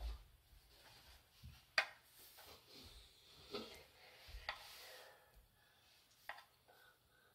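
Metal tongs scraping and tapping on a wooden cutting board and a metal bowl as slices of steak are pushed off the board onto vegetables: scattered soft clicks and rubs, the sharpest click about two seconds in.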